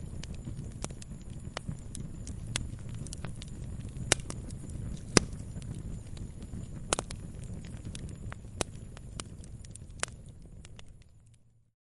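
Wood campfire burning, a low steady rumble of flames with scattered sharp crackles and pops, a few of them louder. The sound fades out to silence near the end.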